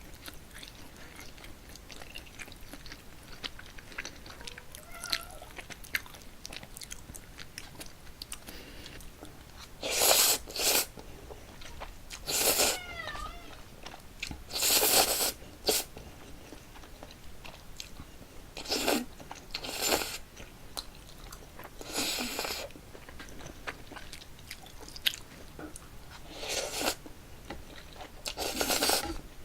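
A person eating cold spicy bibimmyeon noodles: loud, short slurps of the noodles come about every two to three seconds in the second half, with quieter chewing and mouth clicks between them.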